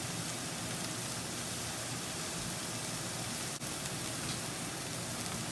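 Chopped onion and pepper sizzling steadily in hot oil in a pan while they saute, an even hiss with a momentary break about three and a half seconds in.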